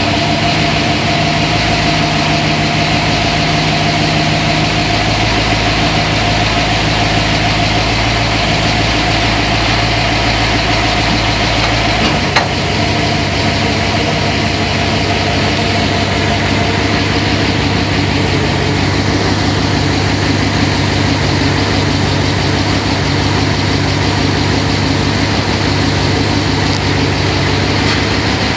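1964 Ford Falcon's 289 cubic-inch small-block V8, with a Comp Cams 270S solid-lifter camshaft and Porter mufflers, idling steadily at about 650–700 rpm.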